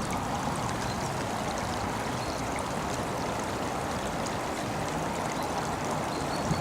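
Steady rush of running water from a spring-fed brook flowing.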